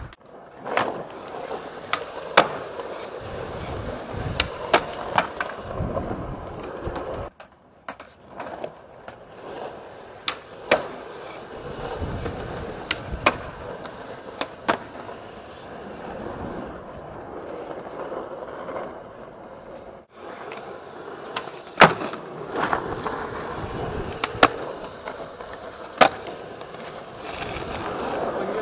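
Skateboard wheels rolling on smooth concrete, with sharp tail pops, landings and board slaps scattered throughout. The sound breaks off briefly twice.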